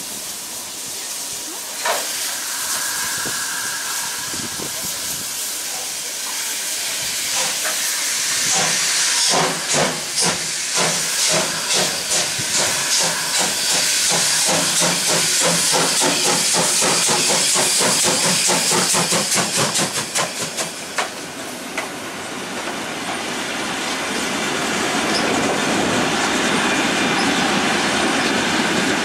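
Steam locomotive starting away: a steady hiss of steam, then exhaust chuffs begin about a third of the way in and quicken as it gathers speed, blending into a continuous rushing train noise near the end.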